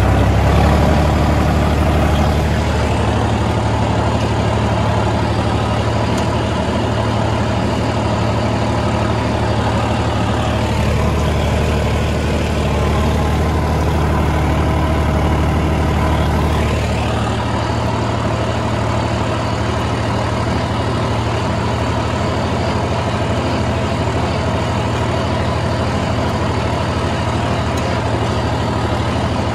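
Hattat A65 tractor's diesel engine running steadily under load as it pulls a mounted plough through the soil, heard from the driver's seat beside the upright exhaust. The engine note swells slightly about halfway through, then settles.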